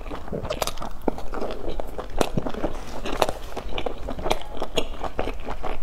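Close-up eating sounds: a person biting into a soft dumpling dipped in chili oil and chewing it, many irregular small mouth clicks.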